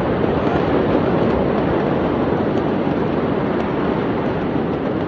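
Steady loud rushing noise with no distinct knocks or tones.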